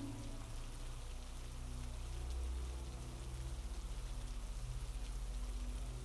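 Steady rain falling, an even patter, over a low deep hum that pulses quickly in the second half.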